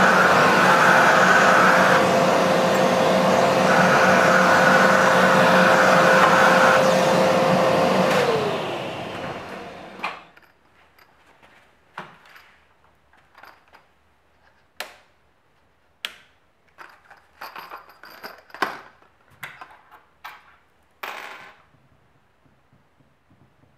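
Workshop vacuum cleaner running, sucking up drilling dust from the bench, then switched off about a third of the way in, its pitch falling as the motor winds down. Then a run of light clicks and clinks as metal washers and bolts are set down on the bench.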